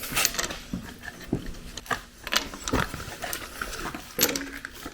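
Spark plugs being unpacked by hand: scattered small clicks, taps and rustles of packaging and metal parts, with a short pitched vocal sound about four seconds in.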